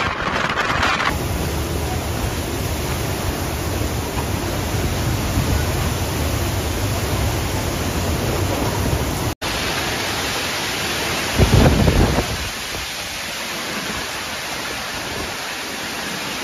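Typhoon-strength wind and driving rain: a steady heavy rush with the wind buffeting the microphone. A sharp cut comes about nine seconds in, and a loud low gust hits the microphone a little under twelve seconds in.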